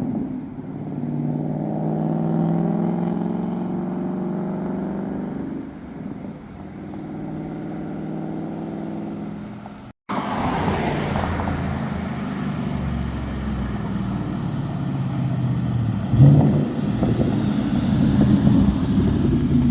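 2014 Mustang GT's 5.0 Coyote V8 running and revving under way, its pitch rising and falling with throttle and gear changes. About halfway through, the sound cuts off abruptly and comes back as a deeper, rougher rumble.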